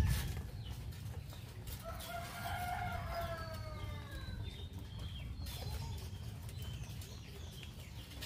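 A rooster crowing once, a long arching call of about two and a half seconds that starts about two seconds in, with faint short chirps of other birds after it. A thump right at the start is the loudest sound.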